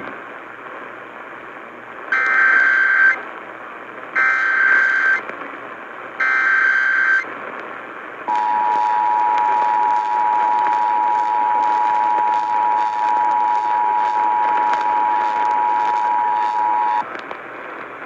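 Emergency Alert System activation heard through a Sangean CL-100 radio's speaker on AM over a steady hiss of static: three one-second bursts of SAME header data tones about a second apart, then the two-tone attention signal held steady for about nine seconds. It is the header and attention signal that open a tornado warning.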